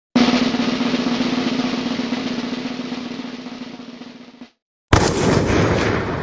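A drum roll that fades away over about four seconds and stops. After a short gap, another sound effect starts with a sudden loud hit and begins to die away.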